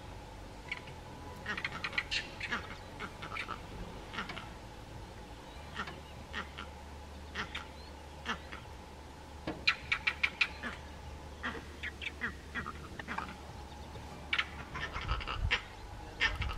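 Vervet monkeys giving alarm calls, warning each other of danger: clusters of short, sharp calls, repeated several times.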